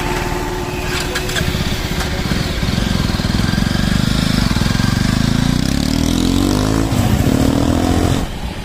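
Jawa 42 motorcycle engine running as the bike pulls away on a test ride. The revs climb over several seconds, dip and climb again about seven seconds in, then fall away near the end.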